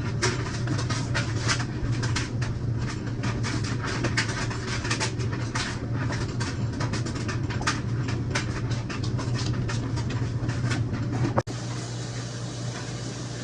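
Rapid, irregular clicks and knocks over a steady low hum. There is a sudden break about eleven seconds in, after which the hum carries on with fewer knocks.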